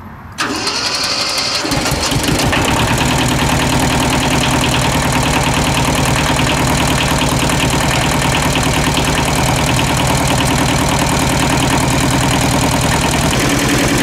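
Kubota L175 compact tractor's diesel engine cranked by its starter from about half a second in, catching in under two seconds and then idling steadily. It is a cold start after a shot of the glow plugs, with the tractor sitting for weeks on a morning in the 40s.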